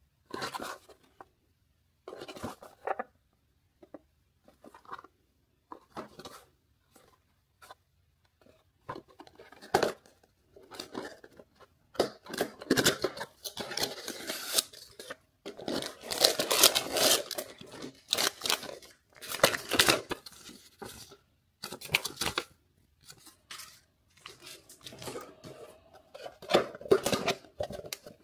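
Cardboard box being handled and opened by hand: short scrapes and taps with pauses at first, then longer ripping and scraping as the box flap is pulled open and the packed toy is worked out.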